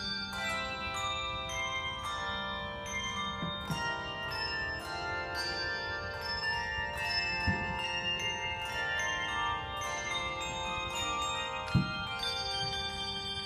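Handbell choir playing: many struck handbells ringing and overlapping in a continuing tune. Two short dull thumps cut in, about halfway and near the end, the second the loudest sound.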